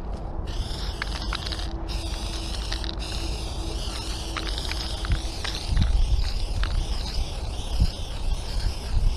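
Aerosol spray-paint can hissing in long sprays with brief breaks, the nozzle pressed and released, over wind rumbling on the microphone that gets louder about six seconds in.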